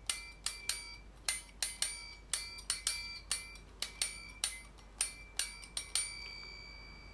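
The tines of a folding camping cutlery set's fork plucked one after another like a music box, each giving a ringing metal note, at several different pitches and about three a second. The plucking stops near six seconds in, and the last note rings on for about a second.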